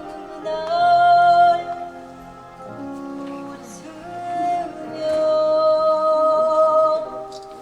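A slow song: a singer holds long notes over instrumental accompaniment, swelling about a second in and again from about five to seven seconds in.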